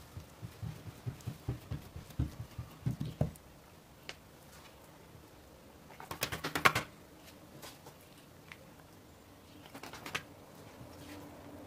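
Hands patting and pressing oiled dough flat on a wooden board, soft dull pats about three a second, stopping about three seconds in. After a pause, a short burst of sticky crackling as the thin oiled dough sheet is peeled up off the board, with a few fainter crackles near the end.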